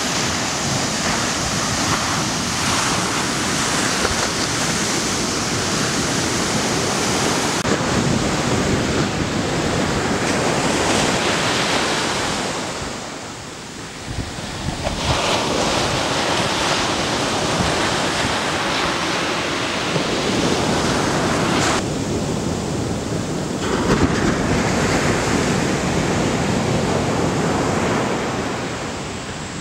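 Ocean surf washing onto a sandy beach: a steady rush of breaking waves that fades briefly about halfway through, then returns.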